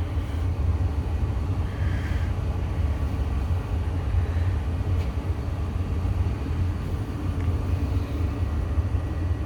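A furnace running with a steady low rumble; the furnace is an existing 75,000 BTU, 17-inch-wide upflow unit.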